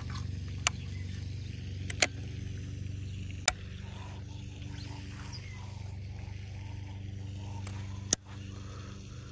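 A steady low motor-like hum, with four sharp clicks, about a second, two, three and a half and eight seconds in.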